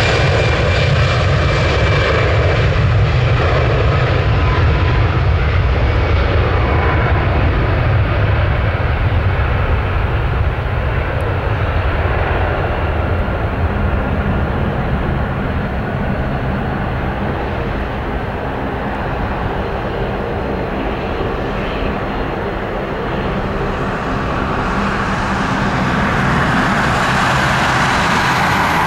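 Airbus A320 airliner's twin jet engines at takeoff thrust: a loud, continuous roar with a deep rumble as it rolls down the runway, lifts off and climbs away. The sound dips somewhat midway and rises again near the end.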